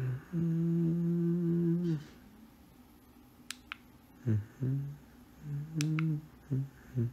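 A man humming a tune with closed lips: one long held note about a second and a half long, then after a pause a string of short notes. A few faint clicks fall between them.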